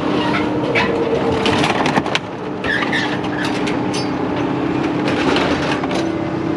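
An engine running steadily under repeated clanks, knocks and crunches, typical of scrap metal being handled and unloaded at a scrap yard.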